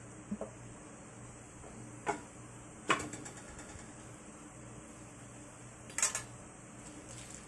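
Several sharp clinks and knocks of metal kitchen utensils against a pot, the loudest about three seconds in and a quick double about six seconds in, over the steady bubbling of a pot of water at a rolling boil.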